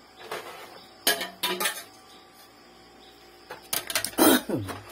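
A man coughing in short bursts: a few about a second in, then a longer, louder fit near the end.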